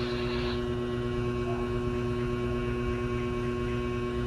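Steady electrical hum: a few fixed low tones and a thinner higher tone that hold without change, over faint background hiss.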